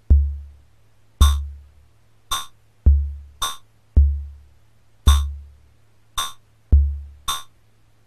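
Homemade CMOS logic-chip drum synth sequenced by an 8-step shift register, playing a looping drum-machine pattern: deep decaying kick-drum thumps alternating with short bright metallic hi-hat-like ticks, about a hit every half second, over a steady low hum. The kick thumps drop out near the end as the registers are cleared.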